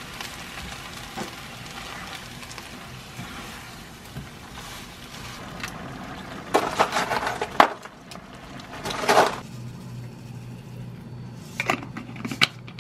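Webfoot octopus and onion stir-frying in red pepper sauce, sizzling steadily in a frying pan, with a spatula scraping and stirring the pan in two loud spells about midway. Near the end, a few short sharp clinks.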